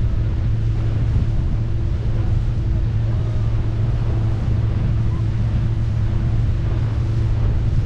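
Steady engine drone of the motorboat towing a banana boat at speed, with wind on the microphone and water rushing past.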